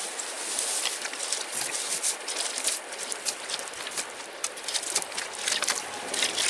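Dry grass tinder and thin twigs crackling and snapping irregularly as a small fire catches, with rustling as more twigs are laid onto it.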